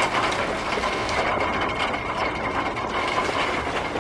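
Monsoon rain shower falling with gusting wind: a steady rushing noise.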